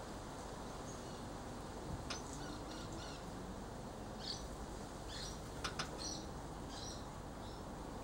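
Small bird chirping in short, high notes, in scattered groups, over a steady faint hiss, with a couple of sharp clicks a little past the middle.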